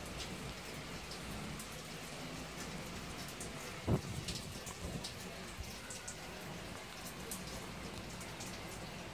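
Steady rain falling, with individual drops ticking, and one sharp thump about four seconds in.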